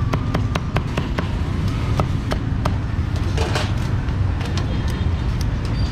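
Cleaver chopping on a wooden block: a quick, regular run of sharp knocks for about the first second, then scattered single knocks, over a steady low rumble.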